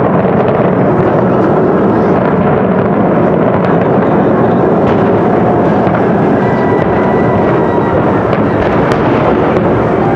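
Large fireworks display in a dense, continuous barrage: a steady loud rumble of overlapping bursts with scattered crackles.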